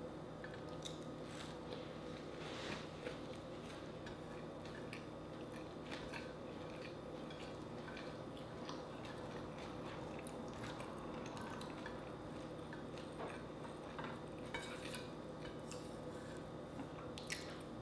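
Close-miked mouth sounds of a person chewing and biting fried dried fish (tuyo), with small scattered clicks over a steady low hum.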